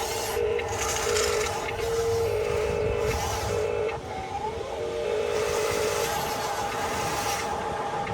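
Small electric motor and gearbox of a radio-controlled construction truck whining steadily with a warbling tone, over a gritty scraping of dirt and gravel.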